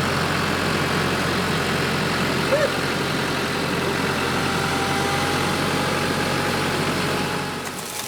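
Tractor engine idling steadily, easing off slightly near the end.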